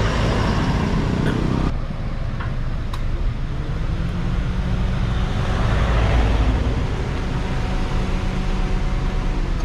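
Car engine idling steadily. A broader rush of traffic swells and fades about five to seven seconds in.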